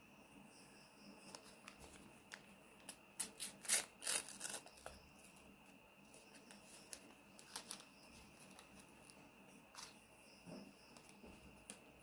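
Thin white paper being torn and crinkled by hand as a small folded paper packet is opened, with the loudest rips about three to five seconds in and a few softer crinkles later. A faint steady high tone sits underneath.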